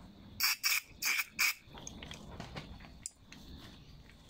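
Aerosol carburetor cleaner sprayed through a thin straw into the jet passages of a plastic Briggs & Stratton 500E carburetor: four short hissing bursts in quick succession, about half a second to a second and a half in.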